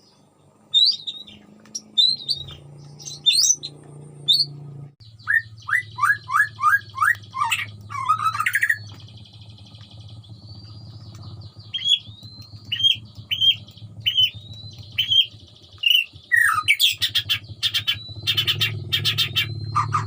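White-rumped shama singing a varied song of short chirps, quick runs of falling notes and clear falling whistles, turning to fast buzzy rattles near the end, over a steady low hum.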